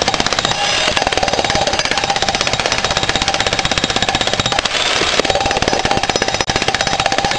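Electric jackhammer breaking old concrete: rapid, even hammering with a steady whine under it.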